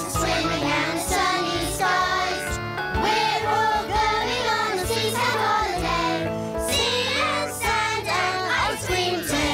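A group of cartoon voices, children's and adults', singing a cheerful children's song together in chorus over a musical accompaniment.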